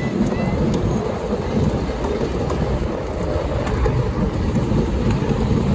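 Miniature railway train running along the track, heard from on board a passenger carriage: a steady rumble of the wheels with scattered faint clicks.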